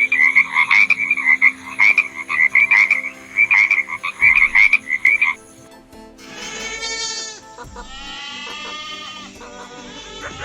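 A frog croaking in a fast, repeated pulsing series that stops about five seconds in. After a short gap, a goat bleats in long quavering calls, about three times.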